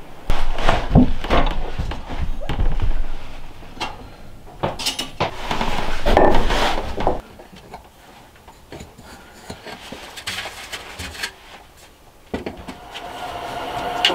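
Irregular knocks and clatters of tools and building materials being handled. Near the end a cordless drill's motor starts and runs with a steady whine.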